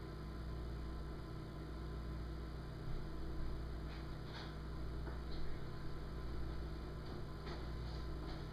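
A steady low electrical hum, with a few faint clicks and soft knocks scattered through it.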